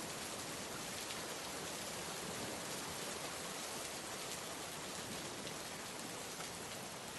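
Steady rain sound effect: an even hiss of rain falling on a surface, with faint scattered drop ticks.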